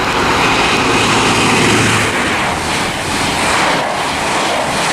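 A High Speed Train (InterCity 125, Class 43 power cars) passing through the station at speed: a loud, steady rushing and rumbling of the train going by, which swells and eases a little as it passes.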